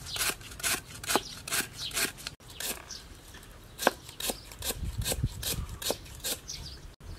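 Steel cleaver slicing lemongrass on a wooden chopping block: a steady run of crisp chops, about two a second, with a momentary break about two and a half seconds in.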